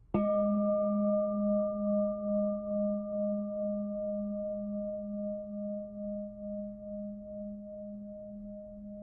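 A singing bowl struck once, then ringing on with a slow, regular wavering and fading gradually.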